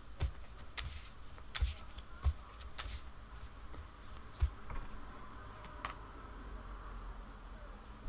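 A small deck of astrology cards shuffled by hand: irregular snaps and slaps of card on card, busiest for the first six seconds or so, then quieter.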